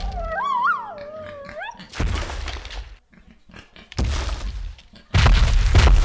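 Heavy booming thuds about two seconds apart, the sound-effect footsteps of a giant dinosaur approaching, the last one longer. Before them, in the first two seconds, a short wavering high-pitched tone.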